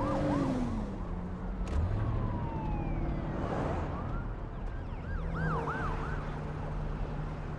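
Emergency-vehicle sirens sweeping up and down in short bursts, with longer falling siren tones in between, over the steady hum of a car engine.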